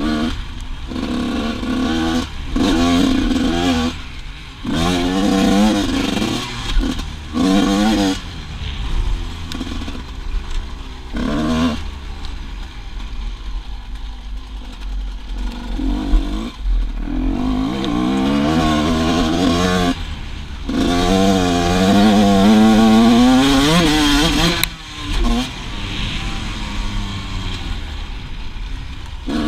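KTM 350 EXC-F single-cylinder four-stroke dirt bike engine revving hard in repeated bursts, its pitch climbing and dropping as the throttle is opened and shut, with quieter off-throttle stretches between. The longest and loudest pull comes in the second half.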